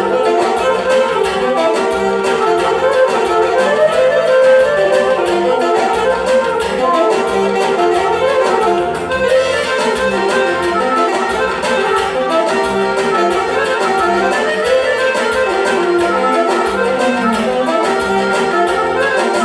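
Live instrumental band music: saxophone and accordion playing a busy melody over a steady beat, with no vocals.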